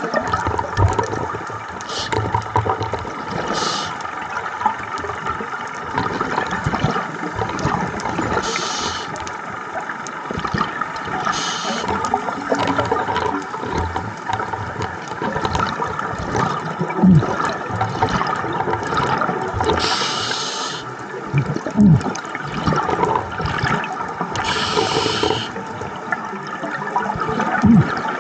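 Scuba diver breathing through a regulator underwater: a continuous gurgling rush of exhaled bubbles, broken every few seconds by a short hiss.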